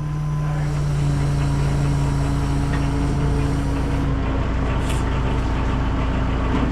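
Hino rollback tow truck's diesel engine running steadily, a constant low hum with a second steady tone joining about a second in.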